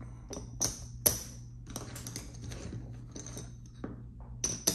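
A run of irregular light clicks and clacks from small hard objects being handled, the loudest about half a second and a second in, with another cluster near the end.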